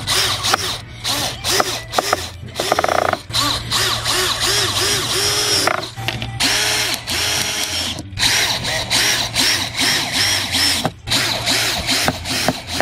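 Cordless drill driving screws into wooden panels, in a series of short runs of motor whine that rise and fall and stop abruptly.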